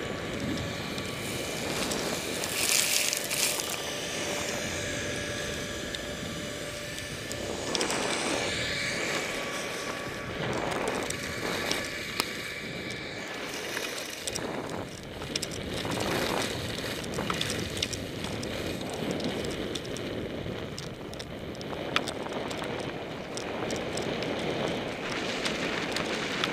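Wind buffeting the microphone of a helmet camera and skis sliding through deep powder snow: a steady noise that swells and dips, with a few brief knocks.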